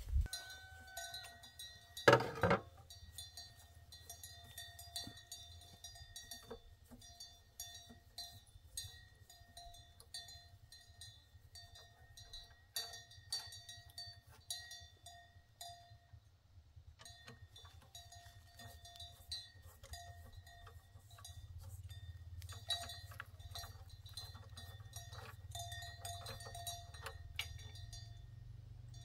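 Faint metallic clinks, taps and scraping of hand tools working on a walk-behind tractor's engine, with a light metallic ringing and one louder knock about two seconds in.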